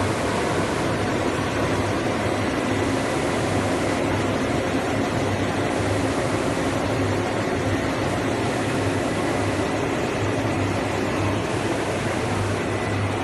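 Six-colour flexographic printing press running: a steady, even machine noise with a low hum and a faint, thin high whine.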